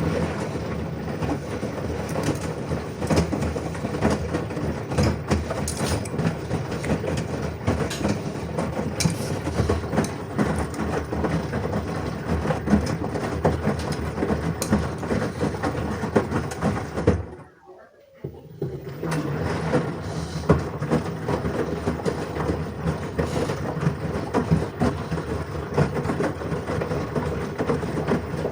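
LG washing machine drum tumbling a load during the wash: a steady churning rumble with dense rapid clicking. It stops for about a second around eighteen seconds in, then starts again.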